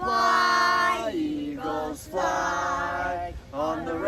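A small group of voices singing a cappella in harmony, with long held notes that change pitch about once a second.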